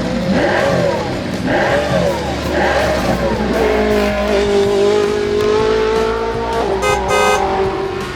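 Car engine sound effect, revving up and down about three times, then holding a steady note, over background music.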